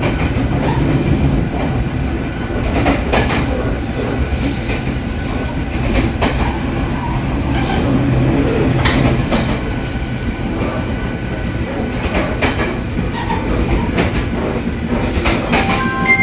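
Steel wheels of a Taiwan Railway E500-hauled push-pull express rolling at about 60–75 km/h. A steady rumble carries scattered knocks and clickety-clack from the wheels on the rails, with the pounding of an out-of-round, flat-spotted steel wheel.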